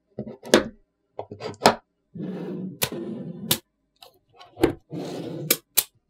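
Small neodymium magnetic balls clicking sharply as they snap together, about eight times, between two stretches of rattling, scraping contact among the balls.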